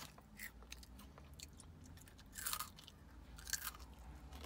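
A child chewing a crunchy biscuit-stick snack: faint scattered crunches, with one louder crackly crunch about two and a half seconds in.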